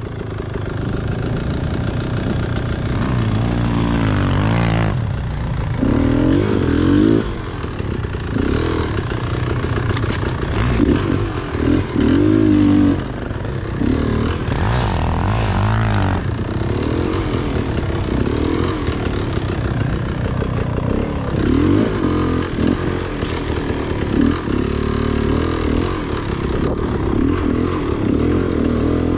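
Dirt bike engine being ridden, its pitch rising and falling again and again as the throttle is opened and closed.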